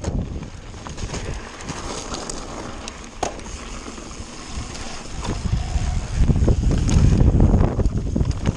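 Kona mountain bike descending a rough gravel and grass trail: wind buffeting the microphone, tyres crunching over stones and many quick knocks and rattles from the bike. The rumble grows louder about six seconds in as the rider picks up speed.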